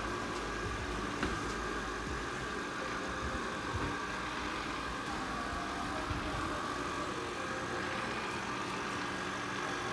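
Ecovacs Deebot N79W robot vacuum running with a steady whir, with a brief click about a second in.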